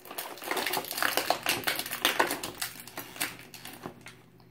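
Rapid crinkling and clicking of small plastic toy packaging and accessories being handled. It is loudest in the middle and tapers off near the end.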